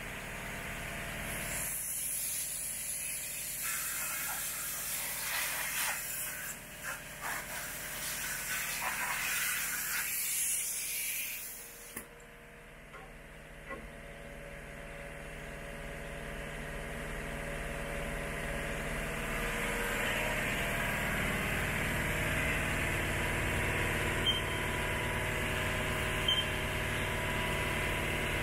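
2001 Haas VF-2B CNC vertical milling machine running. At first there is a hiss with uneven spray-like noise. After a sudden cut about twelve seconds in, a steady mechanical hum slowly grows louder, with two faint ticks near the end.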